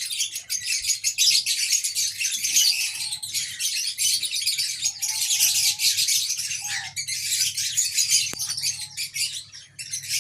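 Many small cage birds chirping and chattering together in a continuous dense twitter, with a few brief lower calls mixed in and a faint steady low hum underneath.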